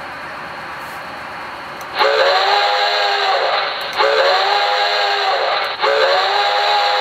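Recorded steam-locomotive chime whistle from a QSI Maxx Traxx model-train sound system, played through a speaker. A steady steam hiss is followed by three loud whistle blasts about two seconds apart, each a chord of several tones, and the third is held longer.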